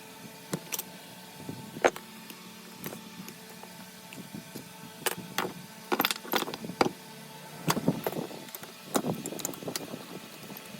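Irregular sharp clicks and knocks of metal parts and tools being handled, coming more often in the second half, over a steady low hum.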